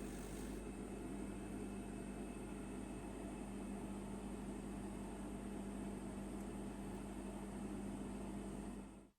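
Small electric polishing machine motor running with a steady hum and hiss, switched off near the end so the sound winds down quickly.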